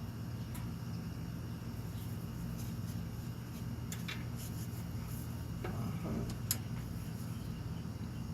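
Steady low mechanical hum, like a fan or shop machinery, with a few faint clicks and light taps, one sharper click about six and a half seconds in.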